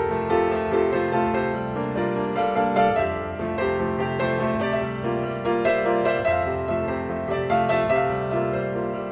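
Solo piano music, with many notes ringing over one another.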